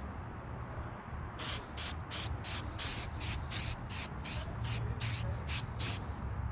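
Aerosol spray-paint can sprayed in a quick series of short hisses, about three a second, starting about a second and a half in.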